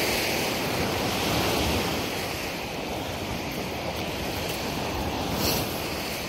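Lake waves washing against the shore, with wind buffeting the microphone. A short sharp tap about five and a half seconds in.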